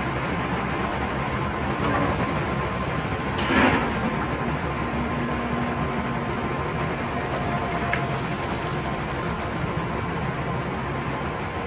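Hitachi hydraulic excavator's diesel engine running steadily while the machine works, with a brief louder rushing swell about three and a half seconds in.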